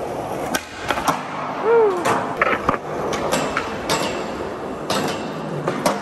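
Skateboard wheels rolling on a concrete parking-garage floor, echoing, with a series of sharp clacks as boards hit the ground and a low metal flat bar.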